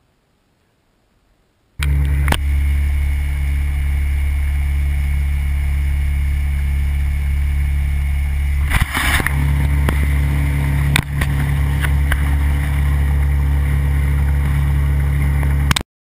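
A boat's outboard motor running at a steady speed, heard close up, with a few brief knocks over it. It starts suddenly about two seconds in and cuts off just before the end.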